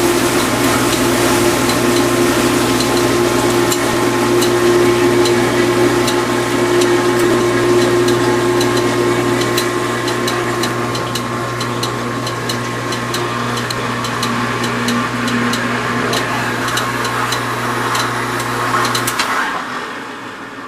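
Vintage KitchenAid dishwasher running, its motor and pump humming steadily while water sprays inside the tub, with a rapid ticking over much of it. Near the end the motor shuts off and the sound dies away.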